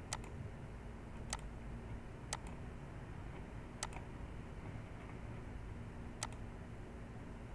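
Computer mouse double-clicks, five quick pairs of sharp clicks spaced a second or more apart, over a low steady room hum.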